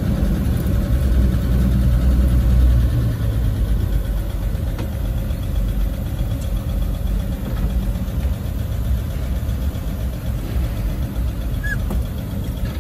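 1953 Chevrolet pickup's engine running at low speed, heard from inside the cab: a steady low rumble that eases off a little about three seconds in.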